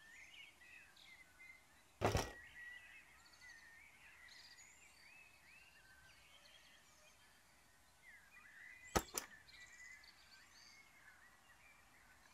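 Small hard plastic toy pieces, a miniature boombox and tiny cassette cases, knocking and clicking on a wooden tabletop as they are handled: one sharp knock about two seconds in and a quick double click around nine seconds. Birds chirp faintly in the background throughout.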